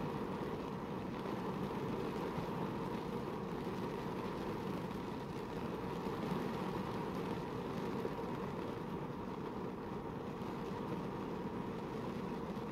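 Heavy rain falling on a car's roof and windshield, heard from inside the cabin as a steady, even rushing noise.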